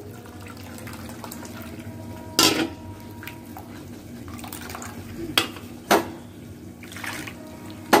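Grated coconut being squeezed by hand in a plastic strainer over a steel bowl, giving soft wet squelching and liquid trickling. The strainer knocks against the steel bowl three times, the first about two and a half seconds in and ringing briefly.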